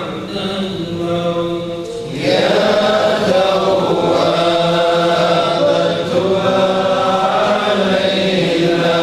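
Congregation of men chanting an Islamic devotional recitation in unison, in long drawn-out notes. The chant swells louder about two seconds in.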